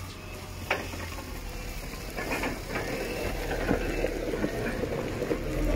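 Merlo telehandler working close by: a low engine hum under irregular clattering and crunching over gravel.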